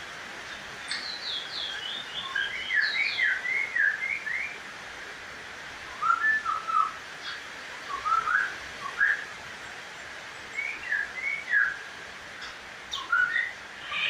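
Caged songbird singing in short phrases of quick whistled notes, with brief pauses between phrases. The first run is the longest, followed by four shorter ones.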